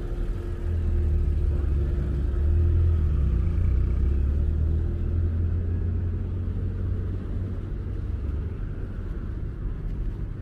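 Street traffic: a low vehicle engine rumble that swells over the first few seconds and eases off toward the end, over steady city background noise.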